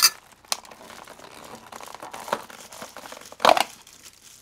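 Plastic takeout packaging crinkling and rustling as bags and lids are handled and pulled off food containers, with a louder crackle about three and a half seconds in.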